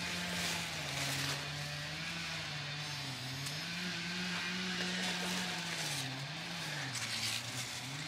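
A motor engine running steadily in the background, its pitch sagging and coming back up several times. Leaves rustle as hands move through the squash plants.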